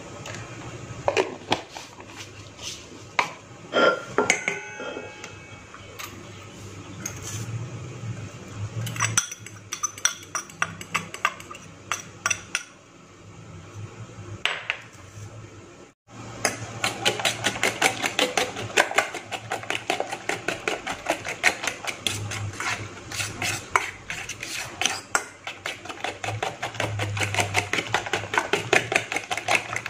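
Scattered clinks and knocks on a stainless steel bowl as seasoning and chopped scallions go in. From about halfway, a fork beats the eggs in the bowl: a fast, steady clatter of metal on metal.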